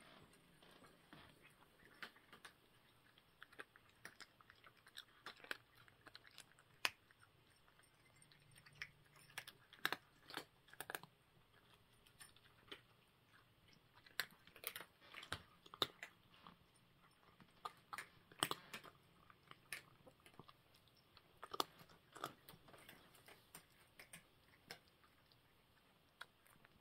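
Cats eating dry kibble from bowls: faint, irregular crunching and clicking as the pieces are chewed.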